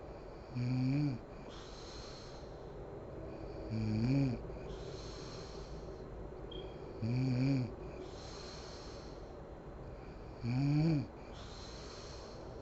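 A sleeping woman snoring in a slow, even rhythm: four loud, voiced, groaning snores with a rising pitch, about one every three and a half seconds, each followed by a breathy rush of air.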